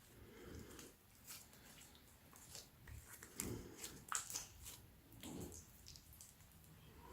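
Clear slime with bits of black paper mixed in, being squeezed and kneaded by hand: faint, irregular squishing with small sticky pops and crackles.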